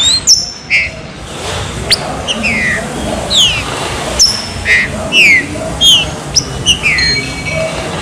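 Green-winged saltator (trinca-ferro) singing its 'chuva serrinha' song: a quick run of short, clear whistled notes, most of them sliding downward, repeated in phrases.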